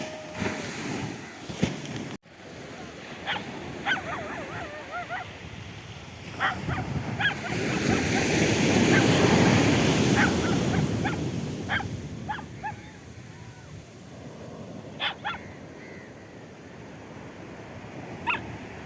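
Arabian Sea surf washing up the beach, with a wave surging in loudest around the middle. Short, high, wavering yelps come and go over it.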